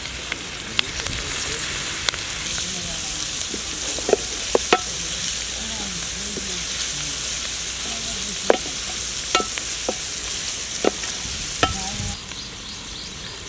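Shredded cabbage, onion and grated carrot sizzling in hot oil in a wide steel pan while being stirred, with a wooden spatula scraping and clicking against the pan now and then. The sizzle stops shortly before the end.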